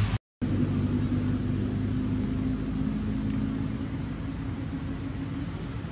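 A motor vehicle's engine running at a steady low hum, easing slightly toward the end. The audio drops out completely for a split second just after the start.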